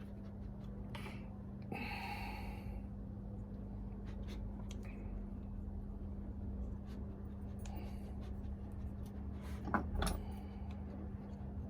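Light clicks and taps of small metal starter-motor parts being handled during disassembly, with a louder clatter of clicks near the end, over a steady low hum.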